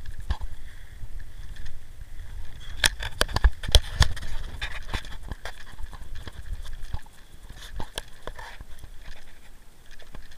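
Footsteps crunching and scraping over burned ground and dry brush: irregular crackling steps, busiest in the middle stretch.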